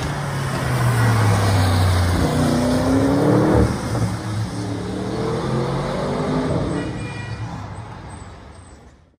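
Audi RS6 Avant's twin-turbo V8 accelerating hard, its engine note rising in pitch, breaking off at an upshift about three and a half seconds in, then rising again and fading as the car pulls away.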